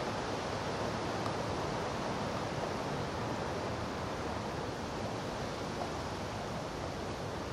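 Steady rush of groundwater pumped out of a flooded basement dig, pouring from a discharge hose into the yard.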